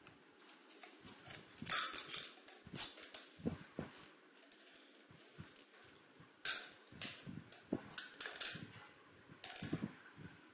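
Scissors cutting through thin plastic water bottles, with irregular crackling snips and crinkles of the plastic and a few light knocks as the bottles are handled.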